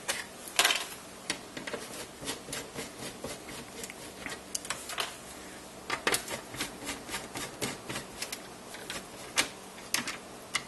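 Screwdriver backing screws out of the metal chassis of a NuTone IMA406 radio intercom: a run of irregular light clicks and ticks, with a few sharper, louder clicks.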